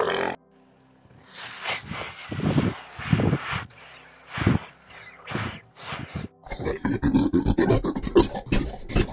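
A snake hissing in several separate bursts. From about six and a half seconds this gives way to a fast, uneven run of short sharp sounds.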